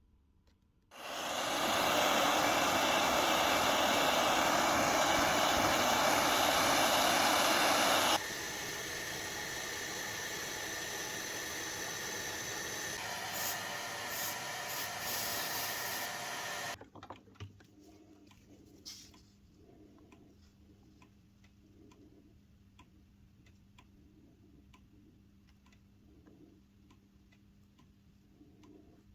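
A loud steady hiss of spraying or blowing air starts about a second in, drops to a softer hiss at about eight seconds and cuts off at about seventeen seconds. Faint light ticks follow.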